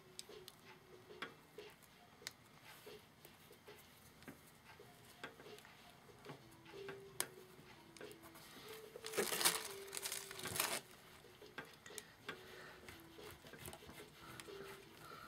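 Light rustling of fabric and lace with small taps and clicks as hands press lace trim onto a cloth journal, with a longer, louder rustle about nine seconds in.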